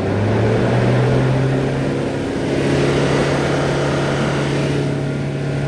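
2021 Toyota Hilux four-cylinder diesel engine running at a raised, steady speed with its No. 3 injector cut out from a scan tool. That injector shows excessive leakage and is the cause of the smoke. The engine speed steps up just after the start and then holds steady.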